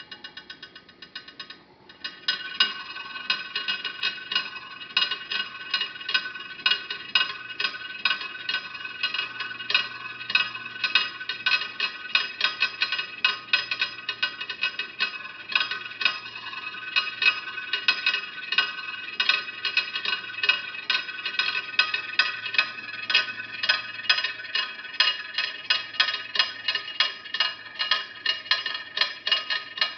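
Homemade putt-putt (pop-pop) boat motor, a brass 30-30 rifle cartridge boiler on an aluminium arrow tube, running in a dish of water: a rapid, ringing tick several times a second. It starts faintly and gets much louder about two seconds in, then keeps going steadily.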